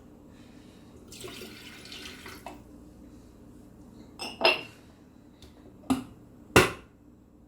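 Kitchen sounds: water runs for about a second and a half, then kitchenware knocks and clinks three times, the last knock the loudest.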